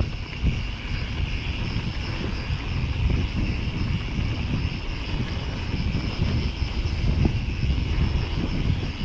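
Wind buffeting the microphone over the rumble of a downhill mountain bike rolling fast over a dirt trail.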